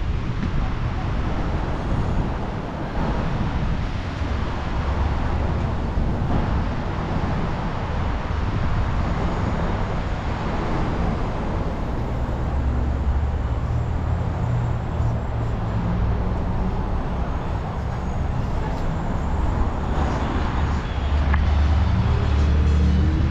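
Street traffic passing close by: a steady wash of car and truck engines and tyres on a multi-lane road. The low engine rumble swells about halfway through and again near the end.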